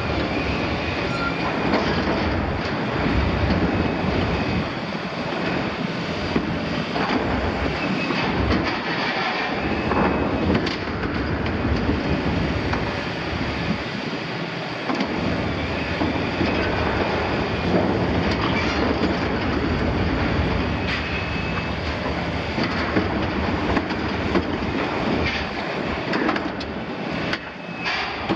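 Liebherr 974 long-front demolition excavator tearing and bending the sheet steel of a double-walled oil tank with its demolition jaws: continuous metal screeching and grinding with repeated clanks, over the excavator's running engine.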